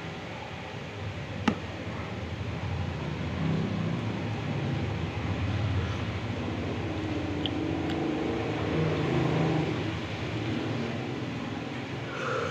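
Eating rice porridge with a metal spoon: a single sharp click of the spoon about a second and a half in, and a short slurp off the spoon near the end. Under it, a low rumble swells through the middle and fades again.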